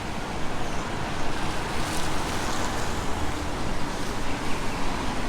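Steady outdoor background noise, an even hiss with no distinct events, recorded through a Rode VideoMicro fitted with its furry windshield.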